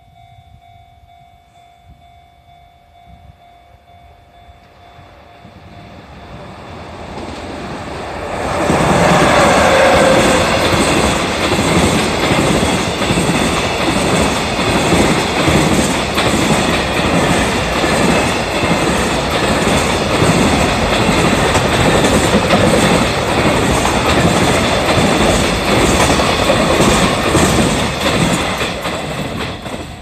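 Freight train hauled by an EF66 electric locomotive approaching and passing over a level crossing. A rumble builds and turns loud about eight seconds in, followed by some twenty seconds of clickety-clack from the wagon wheels over the rail joints, dying away near the end. Before the train arrives, the crossing's warning alarm rings steadily.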